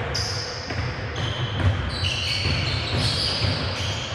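Basketball game in play: a ball bouncing on the court with low thuds, and sneakers squeaking in short high chirps.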